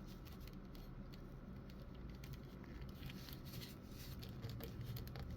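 Faint scattered clicks and light scraping of a plastic action figure being handled, its joints and pieces moved in the hands, with a small cluster of clicks about three seconds in.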